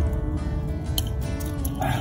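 Background music with a heavy bass.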